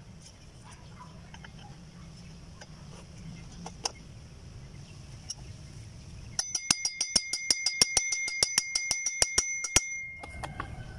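A fast run of metal taps, about seven a second for some three seconds, on a pressure washer pump's belt pulley as it is fitted onto the pump shaft. The metal pulley rings with a steady high tone that lingers briefly after the last tap.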